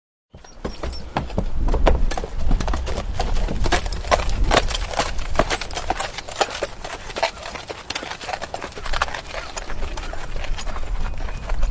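A horse walking, its hooves striking the ground in an uneven clip-clop rhythm. The sound drops out briefly right at the start.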